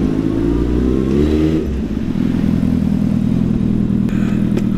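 Suzuki Hayabusa's inline-four engine revved, its pitch rising for about a second and a half, then settling back to a steady idle.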